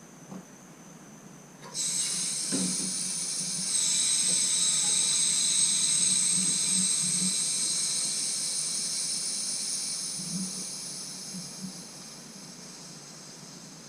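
Water rushing through a partly opened valve into the tankless heater's plumbing: a high hiss with a whistling edge that starts suddenly about two seconds in and slowly fades.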